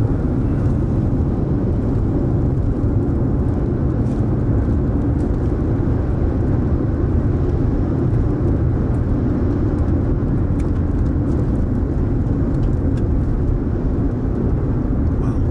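Steady road and engine noise heard from inside a moving car, a low, even rumble.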